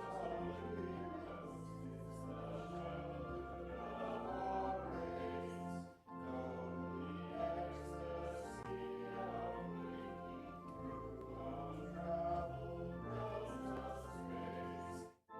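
Church music led by organ: sustained chords over held bass notes, changing about once a second. It breaks off briefly about six seconds in and again near the end, like pauses between phrases.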